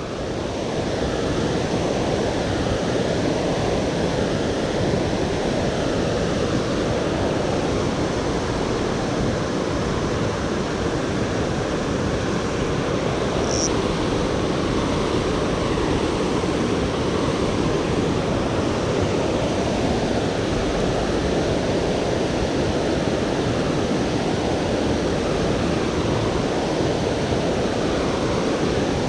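Water spilling over a low dam as a man-made waterfall: a steady, unbroken rush of falling water. A brief high chirp sounds once about halfway through.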